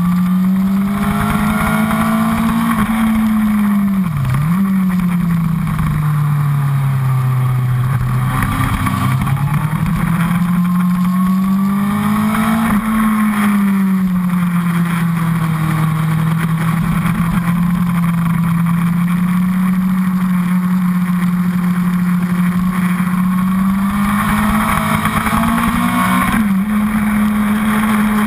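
Honda CBR1000RR's inline-four engine running hard at speed, heard close up from the fuel tank. The engine note rises and falls with the revs, dipping sharply about four seconds in, climbing again from about eight seconds, and holding steady for long stretches.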